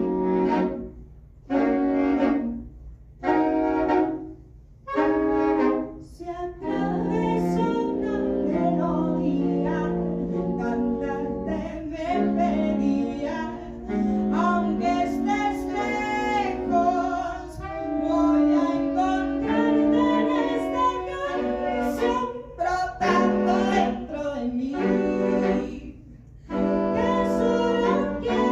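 Saxophone quartet of soprano, alto, tenor and baritone saxophones playing in harmony: a handful of short, detached chords separated by brief pauses, then a continuous passage of sustained chords with moving lines.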